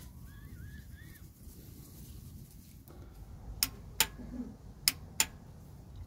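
A few sharp metallic clicks, four in about a second and a half near the end, as a socket and ratchet are worked onto a reverse light switch under a car, over a steady low rumble. A short warbling bird chirp sounds in the first second.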